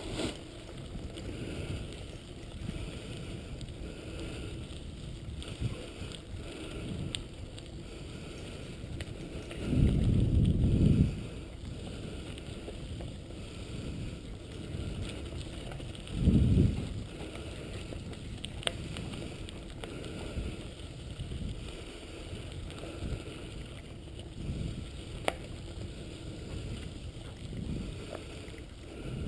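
Steady low rumble of a dog-drawn mushing rig rolling over a gravel road, with wind on the microphone. Two louder low rumbles stand out, a longer one about ten seconds in and a shorter one about sixteen seconds in, and there are a few faint clicks.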